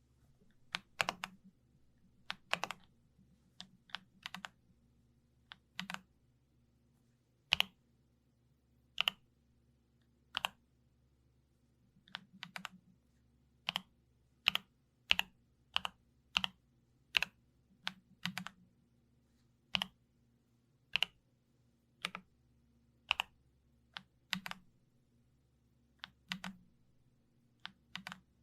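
Keys of a YUNZII B75 Pro mechanical keyboard pressed slowly, one at a time. Each press gives a short, sharp keystroke sound, about one a second with uneven gaps, some coming in quick pairs.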